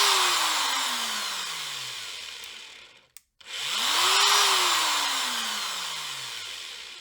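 Ferrex 40V cordless angle grinder motor winding down with a falling whine after cutting out, then spinning up sharply a second time about three and a half seconds in and again coasting down. The control board shuts the motor off moments after each start, a fault the repairer puts down to its microcontroller IC.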